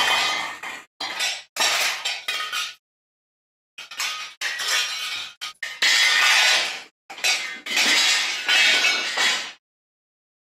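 Metal plates, pans and silverware dropped and crashing: a string of separate clattering, jangling crashes, each cut off abruptly, with a pause of about a second after the first few.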